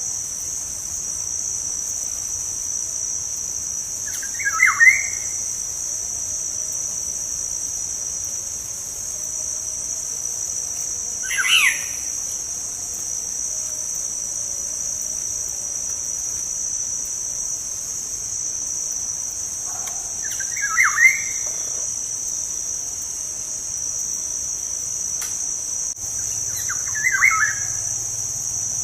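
Black-naped oriole (kepodang) giving four short, harsh calls several seconds apart, over a steady high-pitched insect drone.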